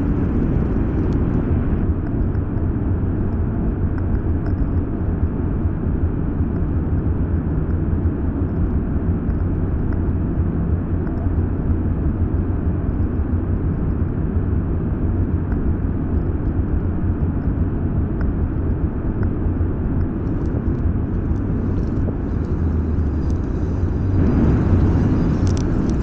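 Steady wind rush and road rumble on the microphone of a rider on an electric scooter, swelling a little near the end.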